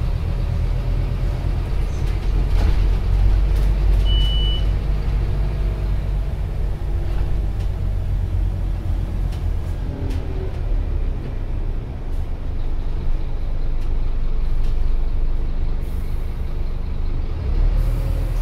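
Cabin noise inside a Scania OmniCity single-deck bus on the move: the engine and running gear give a steady low rumble, with one short high beep about four seconds in.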